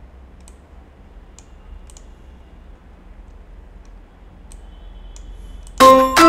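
A few faint clicks at a computer, then near the end loud music starts suddenly, a quick run of separate bright pitched notes: the soundtrack of a mascot animation beginning to play.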